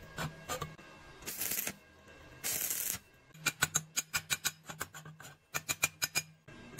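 Two short bursts of stick-welding arc crackle, about half a second each, as two tack welds are struck on a thin steel pipe joint. Then comes a rapid run of sharp metallic taps from a chipping hammer knocking slag off the tacks.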